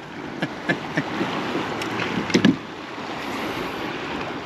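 Water sloshing and lapping against a kayak, with small clicks and knocks of handling on board and one brief thump about two and a half seconds in.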